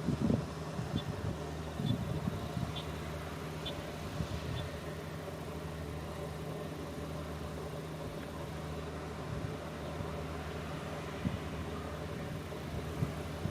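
An engine running steadily at a low, even hum. Five faint high ticks about a second apart sound in the first few seconds.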